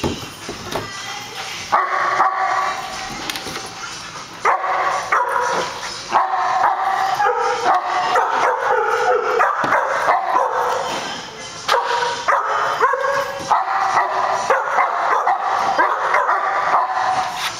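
Dogs barking in play, in rapid runs of barks with short lulls about four and eleven seconds in.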